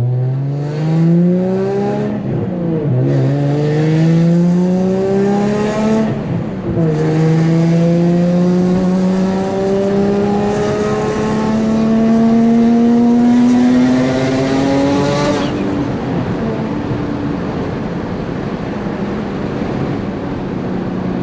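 Single-turbo Nissan 350Z's 3.5-litre VQ35HR V6 at full throttle through the gears, heard from inside the car: the engine note climbs, breaks at two quick upshifts, then climbs in a long pull for about eight seconds. Near three-quarters of the way through the throttle lifts and the engine drops to a steady, lower cruise. The car runs a rear-mounted turbo and has an exhaust leak.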